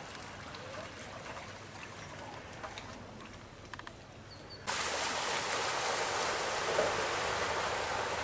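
Floodwater flowing across a lane. At first there is a faint, even outdoor hiss with a few light clicks. A little over halfway through it cuts abruptly to a loud, steady rush of running water.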